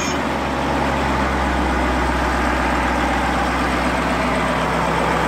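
Caterpillar 3208 V8 marine diesel engine idling steadily, just started from the helm.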